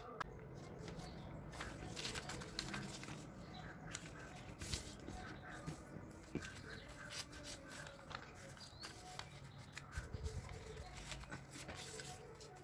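Scissors cutting through newspaper, then a newspaper strip rustling and crackling as it is folded and creased flat by hand.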